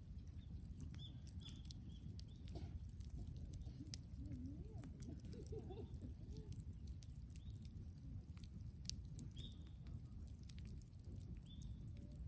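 Brush bonfire of cut scrub wood crackling, with irregular sharp pops over a steady low rumble. A few short bird chirps sound through it.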